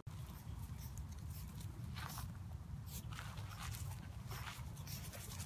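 A French bulldog puppy making a handful of short sounds as it moves through clover, over a low steady rumble.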